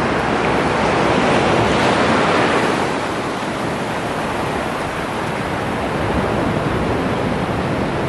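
Sea surf washing in over a shallow beach: a steady rushing hiss of breaking and spreading waves, a little louder in the first few seconds.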